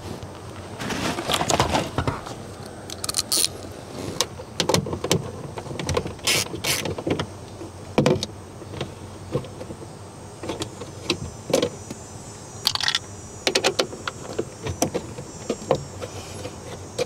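Hands working the plastic dash trim of a 1992 GMC 3500 loose: scattered clicks, knocks and rattles of plastic panels and small tools, with a longer scraping rustle about a second in.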